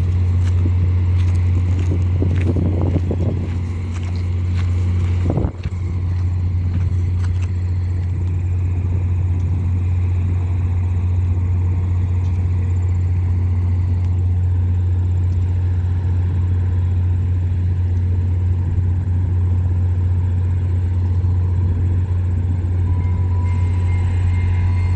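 Steady low hum of an idling diesel locomotive. A thin steady high tone comes in near the end.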